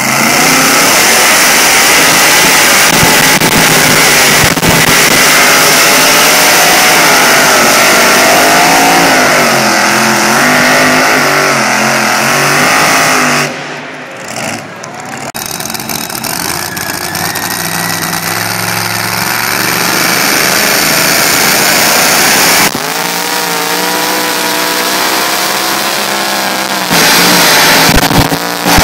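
Two-wheel-drive pulling truck engines at full throttle dragging a weight-transfer sled, loud, with the engine pitch wavering up and down as the revs rise and fall under load. About 13 seconds in, the sound drops briefly, then another pulling truck's engine builds up and runs hard at high revs.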